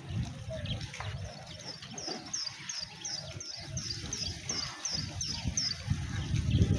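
A bird calling in a run of about a dozen short, high, falling notes, roughly three a second, over a low outdoor rumble.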